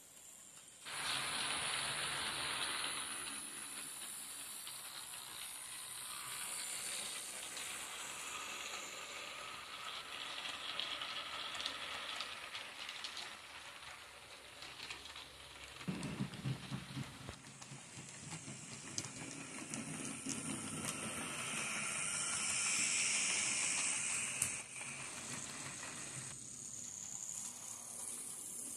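HO-scale model trains running on the track: a steady hiss of motors and wheels on the rails, which starts about a second in and changes with each passing train, with a stretch of clicking and rattling about halfway through as wheels run over rail joints.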